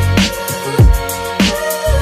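Background music with a steady drum beat, a heavy low hit a little under twice a second, under sustained chords.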